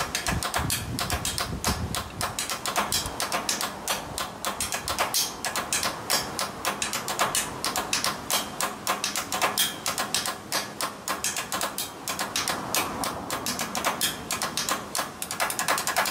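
Wooden drumsticks drumming a fast, continuous rhythm on a bridge's metal guardrail and railing: a dense run of sharp, clacking strikes, many per second.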